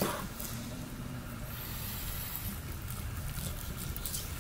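Knife slicing through raw beef on a wooden cutting board, with a short cutting stroke right at the start, over a steady low rumble.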